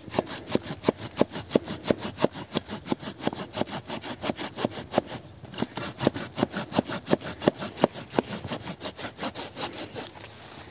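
Silky Gomboy Curve folding hand saw cutting through a fallen log with fast, even back-and-forth strokes, about four a second, with a brief pause about halfway.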